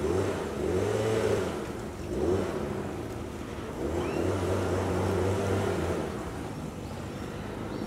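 A motor engine droning low, swelling and fading in a few waves.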